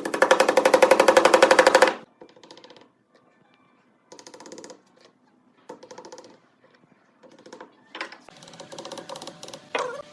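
Electric sewing machine stitching fabric in bursts: one loud run of rapid stitches lasting about two seconds, then several shorter runs with pauses between.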